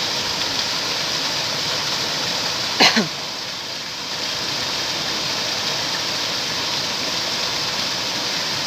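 Water rushing steadily into a Thames lock chamber as it fills to raise a boat. A brief, loud vocal sound breaks in about three seconds in.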